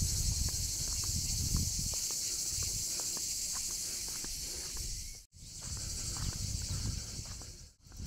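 Dense, steady high-pitched shrilling of insects, with low rumbling on the microphone in the first two seconds. The sound drops out briefly twice, about five and eight seconds in.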